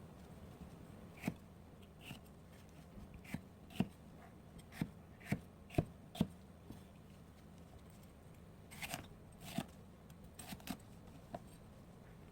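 Knife cutting food on a cutting board: separate knocks at uneven spacing, several of them close together near the end.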